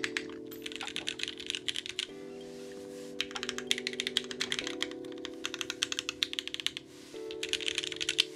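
Typing on a custom mechanical keyboard with Gateron Oil King linear switches and case foam fitted: runs of rapid keystrokes in several bursts with short pauses between them. Soft background music plays underneath.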